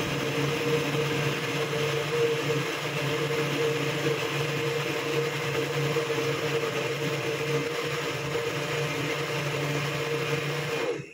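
Countertop electric blender running at a steady speed, blending a liquid mango-and-milk mixture: an even motor whir with a held hum, cutting off abruptly near the end.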